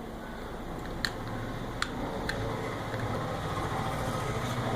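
A few light clicks as the small plastic wireless mouse and its USB dongle are handled, over a steady background noise.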